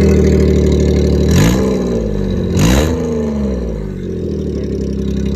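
Maruti 800's small three-cylinder petrol engine idling through a modified, louder exhaust, with two quick throttle blips about a second and a half apart. Each rev rises and falls quickly before the engine settles back to idle.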